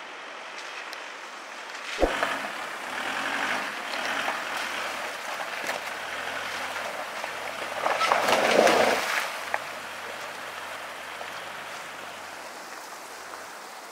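Off-road SUV engine running steadily as the vehicle crawls over a rocky track, with wind and gravel noise. A sharp knock comes about two seconds in, and a louder rush of noise comes a little past the middle.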